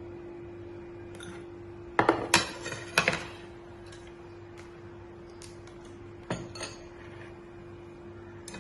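Dishes and cutlery clinking as they are handled and set down: a cluster of sharp knocks about two to three seconds in, then two lighter clinks about six seconds in, over a steady low hum.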